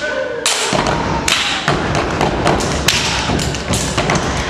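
Rapid, loud stomps of a step team's routine on a stage floor, struck in a dense, irregular rhythm.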